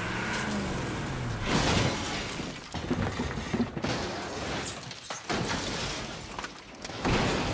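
Off-road pickup truck sliding and rolling down a steep rocky slope: an engine revs and drops away in the first second, then come heavy crashes and crunching of metal and rock, about a second and a half in, again around three seconds, and near the end.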